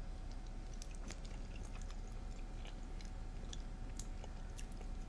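A person chewing a mouthful of food, with soft irregular clicks and smacks from the mouth over a faint steady background hum.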